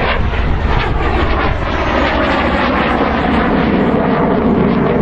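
A fixed-wing aircraft's engines, loud and steady as the plane flies past.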